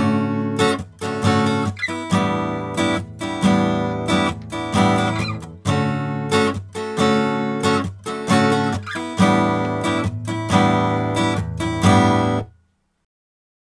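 Acoustic guitar strummed in a steady rhythm, recorded through a Grace Design m501 microphone preamp for a transparent, uncoloured sound. The playing cuts off abruptly about a second before the end.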